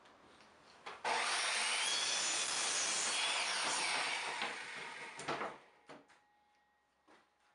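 Skilsaw miter saw running and cutting through a thin wood strip. The loud cut starts abruptly about a second in and winds down after about four seconds, followed by a few light knocks as the strip is handled.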